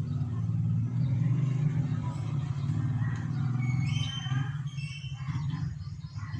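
Vehicle engine running steadily at idle, a little quieter in the last couple of seconds.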